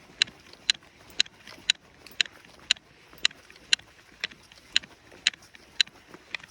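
Sharp, bright clicks at an even walking pace of about two a second, the hiker's gear clicking with each step as he walks briskly.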